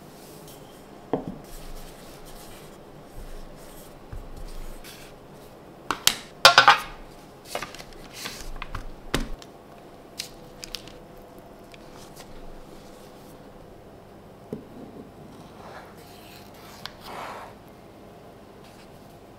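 Kitchen handling sounds from making bread dough: scattered clicks, knocks and scrapes of a spoon, a glass jar and dough on a wooden benchtop, with hands brushing flour. The loudest is a short clatter about six and a half seconds in.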